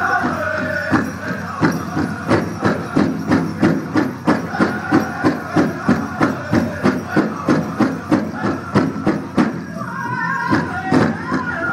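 Powwow drum group: high-pitched singing over a big drum struck in an even beat about three times a second. The singing drops back through the middle, leaving the drum beat in front, and comes back strongly near the end.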